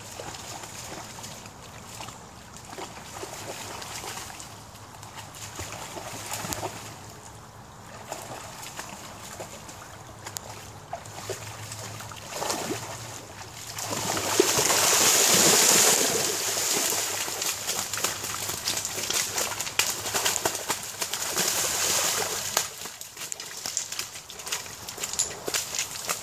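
A rottweiler splashing through a shallow creek, with the loudest burst of splashing about halfway through as it bounds through the water, then lighter sloshing as it wades on.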